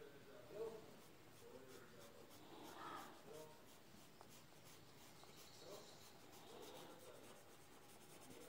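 Faint scratchy rubbing of a cotton bud across graphite-shaded drawing paper, blending the pencil shading.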